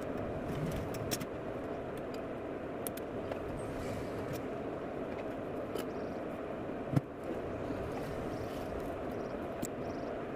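Steady low background rumble, with scattered light clicks and one sharp knock about seven seconds in.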